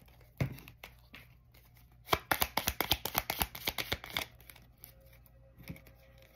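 A deck of tarot cards being handled and shuffled. One sharp snap comes about half a second in, then a quick run of card clicks lasts about two seconds.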